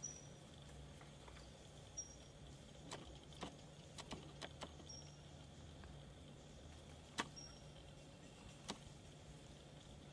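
Quiet forest ambience: a faint steady hum under scattered sharp clicks and ticks, most of them in a cluster from about three to five seconds in and the loudest about seven seconds in, along with four brief high-pitched chirps spread through.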